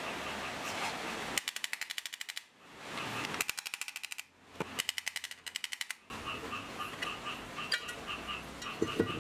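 A hammer tapping fast on the metal motor housing of an old Makita circular saw, in three quick runs of about a dozen taps a second, knocking the stator loose from the housing. A pulsing chirping sits in the background before and after the taps.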